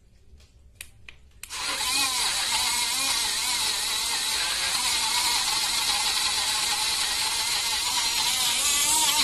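Portable USB rechargeable mini blender switched on about a second and a half in, after a few light clicks; its small battery motor then runs steadily with a loud whir as the blades churn banana and milk into a shake.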